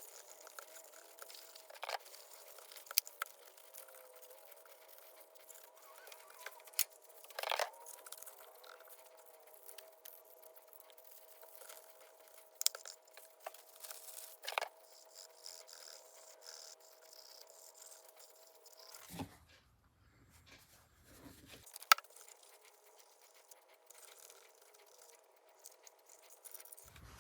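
Faint, sparse clicks and taps over a faint steady hum, with one sharper click near the end.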